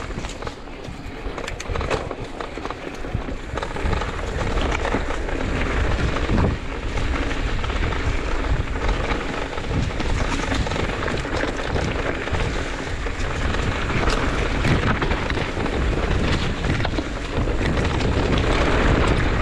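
Steady wind rumble on the microphone with a rushing noise and scattered clicks and rattles, typical of a camera carried along a trail at speed.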